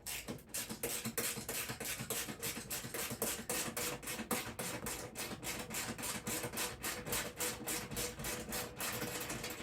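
Troy-Bilt snowblower's small engine running, with an even, rapid chuffing beat of about six pulses a second.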